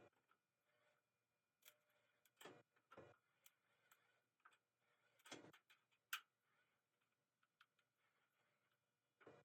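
Near silence with a few faint, scattered clicks and short scraping or handling noises.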